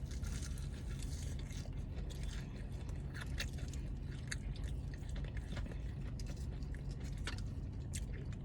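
A person chewing and biting into KFC fried chicken close to the microphone, with scattered short wet clicks and smacks. A steady low hum runs underneath.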